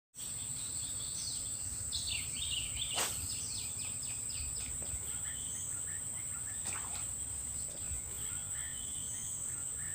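Insects droning steadily at one high pitch, with a bird's quick series of short chirps about two seconds in. A sharp click about three seconds in and another near seven seconds, over a low rumbling background.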